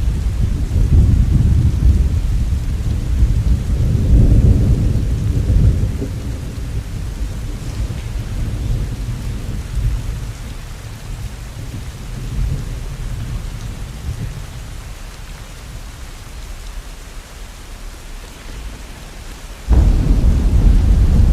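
Steady rain with rolling thunder: a heavy low rumble over the first several seconds that slowly dies away, then a loud rumble that starts suddenly near the end.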